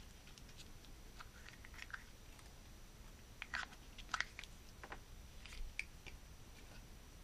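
Small plastic toy tool box being handled and opened: scattered light plastic clicks and taps, with a few sharper snaps a little past the middle.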